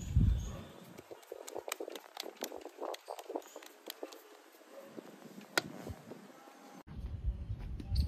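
Bati dough being shaped by hand: soft, irregular pats and taps of the palms and fingers on a dough ball, a few a second. Near the end a low rumble comes in.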